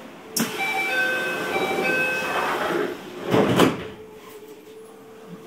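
Keio 1000 series train's door-closing chime, a string of short tones alternating between a few pitches, as the sliding doors close. About three and a half seconds in the doors shut with a loud thud and a rush of air, and a steady low hum from the standing train follows.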